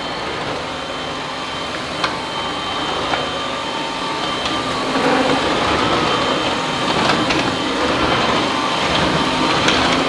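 Makita DVC560 twin-18V cordless upright vacuum cleaner running steadily, its motor and rotating brush roll going as it is pushed across a hard floor. There are a few short clicks, and it gets a little louder about halfway through.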